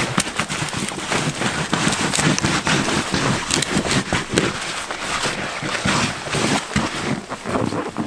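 Boots crunching and scraping on icy, frozen snow in irregular steps and shuffles.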